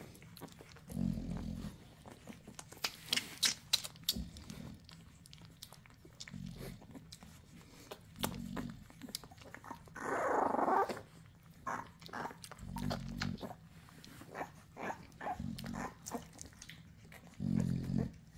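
Nano American bully mother and her puppies while nursing: short low grunts or growls every two to three seconds, scattered clicking suckling sounds, and one louder, rougher sound lasting about a second just past halfway.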